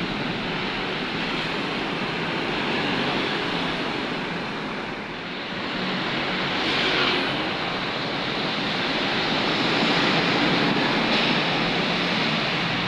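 Steady noise of busy city road traffic, cars, motorcycles and large vehicles, mixed with wind rush; it swells briefly about seven seconds in.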